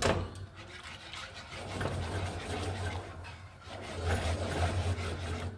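Wire whisk stirring a cream sauce in a non-stick frying pan, the wires scraping and swishing against the pan in uneven strokes, with a low steady hum underneath.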